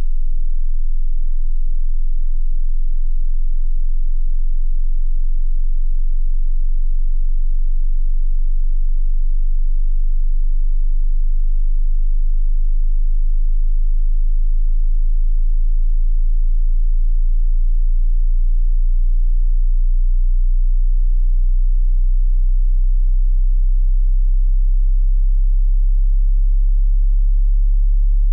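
A pure sine-wave test tone, very low in pitch and steady in loudness, gliding slowly upward from about 20 Hz: the bottom of a 20 Hz to 20 kHz hearing-test frequency sweep.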